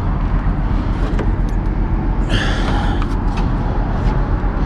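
Semi truck's diesel engine idling with a steady low rumble, with a brief hiss about halfway through.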